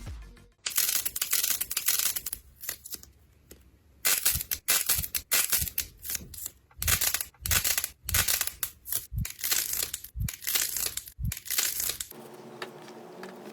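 Crunchy slime being squeezed and pressed: a dense, irregular run of crackles and pops that stops about twelve seconds in, followed by a quieter steady sound.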